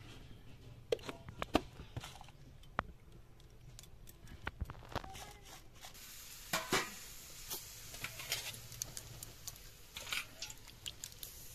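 Mung dal boiling hard in a clay pot, its froth bubbling and popping with scattered crackles. About six seconds in, as the froth rises over the rim, a steady hiss joins the popping.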